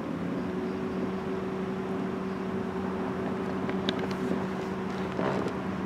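A steady mechanical hum holding one pitch over a low rumble, with a couple of faint clicks about four and five seconds in.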